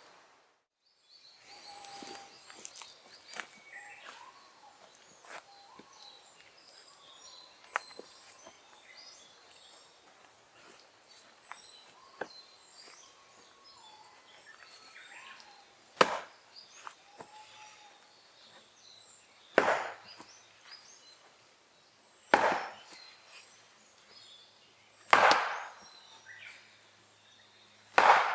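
Firewood being chopped: five heavy chopping strikes about three seconds apart in the second half, after a stretch of lighter scattered knocks.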